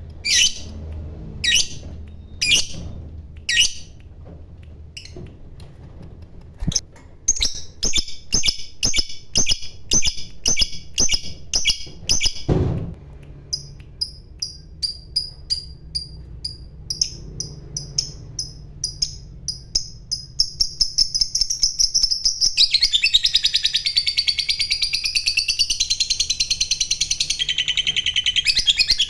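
Lovebird calling: sharp separate chirps, then quick runs of repeated chirps, breaking in the last six seconds or so into one long, unbroken rapid chatter, the 'ngekek' trill prized in fighter lovebirds.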